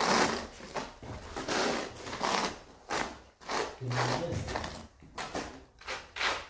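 Notched trowel scraping through cement tile adhesive on a concrete floor, one scrape with each sweeping stroke, repeated about once or twice a second.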